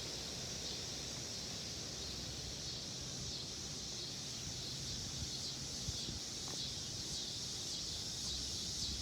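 Wind blowing across the microphone, a steady low rumble under a constant high hiss.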